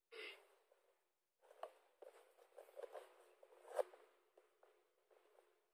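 Faint, irregular taps and knocks of a person moving about, with a short rustle at the start; the loudest knock comes nearly four seconds in.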